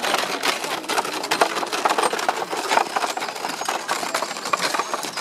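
Wooden spoked wheels of a small field-cannon carriage rolling over a gravel path: a continuous, dense rattle of small clicks.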